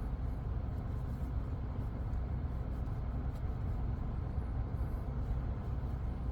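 Steady low rumble inside a pickup truck's cab, with the engine idling and the air-conditioning blower running.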